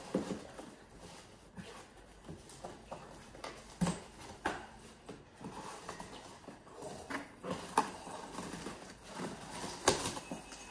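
A cardboard gift box being handled and tugged at while its taped lid resists opening: scattered rustling and scraping with a few sharp knocks, the loudest near the end.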